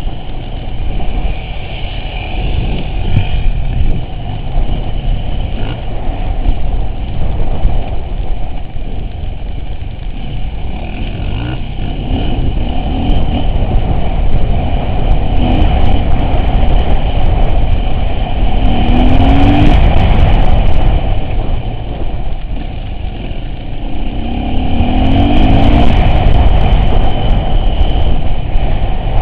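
Off-road vehicle driving, its engine running steadily under a heavy low rumble, with two brief louder surges with extra hiss about two-thirds of the way through and again near the end.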